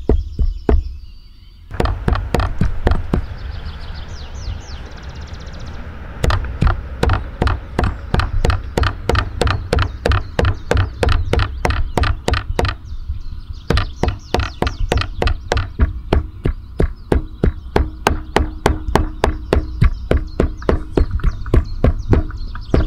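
Meat cleaver chopping raw meat into mince on a wooden log chopping block: quick, even strokes at about three a second, pausing briefly about a second in and again just before halfway.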